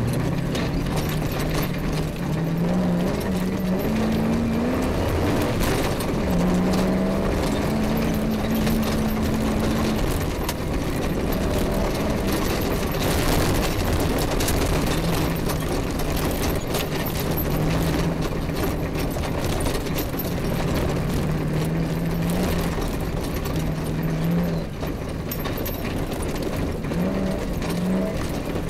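Off-road rally vehicle's engine running hard as it drives over a rough grass track, its pitch climbing and dropping several times with the revs and gear changes, amid constant rattles and knocks from the vehicle bouncing over the bumps.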